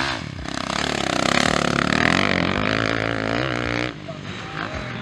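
Motocross bike engine revving hard under throttle, its pitch rising and wavering, then dropping away suddenly about four seconds in.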